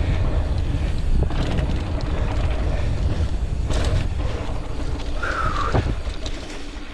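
Wind buffeting the microphone as a mountain bike is ridden fast down a rough trail, with knocks and rattles of the bike over the ground and a short falling squeal a little after five seconds in.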